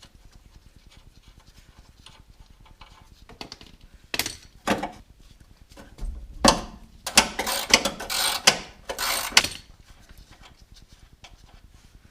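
Socket ratchet wrench clicking in short runs as nuts are backed off, with a sharper metal knock about six and a half seconds in.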